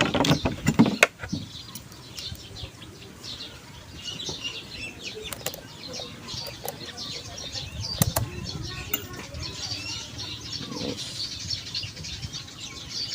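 Small birds chirping steadily in the background, with a burst of sharp clicks and knocks in the first second and single clicks about five and eight seconds in, from tools and parts being handled.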